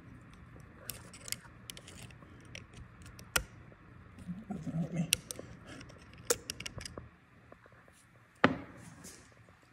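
Small metal hand tool clicking and scraping against the cast-iron head of an air brake air compressor as the unloader parts are worked out. Scattered light clicks, with two sharper knocks about a third of the way in and near the end.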